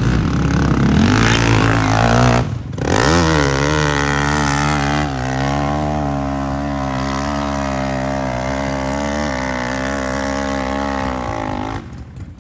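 Four-stroke hillclimb motorcycle engine revving hard at the start, then running at high, fairly steady revs with a slight waver as the bike climbs the dirt hill. The engine note breaks off briefly about two and a half seconds in and drops away suddenly just before the end.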